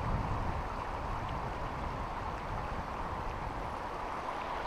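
Steady rush of flowing river water, an even hiss with a low, uneven rumble beneath it from wind on the microphone.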